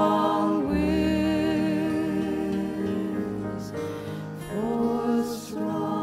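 Folk song with a woman's voice singing long, drawn-out notes with vibrato over steady sustained accompaniment.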